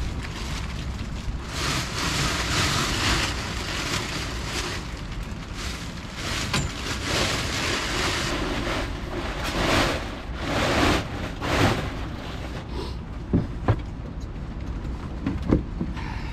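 Wind buffeting the microphone while a tarp rustles and flaps in several loud surges; a few sharp knocks near the end.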